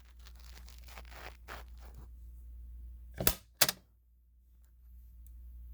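Rustling handling noise, then two sharp clicks about a third of a second apart, a little past three seconds in: a Simplex fire alarm pull station's handle being pulled down by hand.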